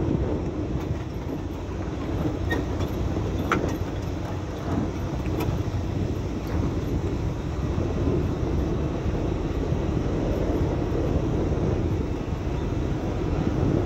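A vehicle travelling along an unpaved dirt road: a steady rumble of engine, tyres and wind, with a few light clicks in the first half.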